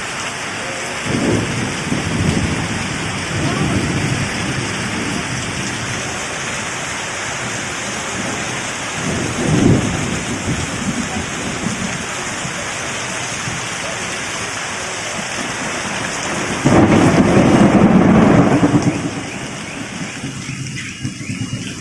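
Heavy rain falling steadily with repeated thunder: low rolls a second or so in and about halfway, then a louder, longer roll near the end that dies away after about two seconds.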